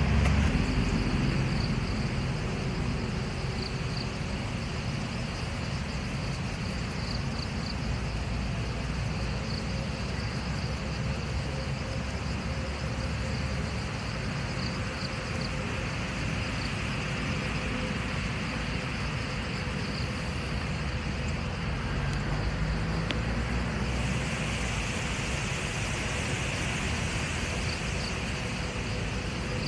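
Steady outdoor rumble and hiss, with faint, repeated insect chirping. The hiss grows a little louder about two-thirds of the way through.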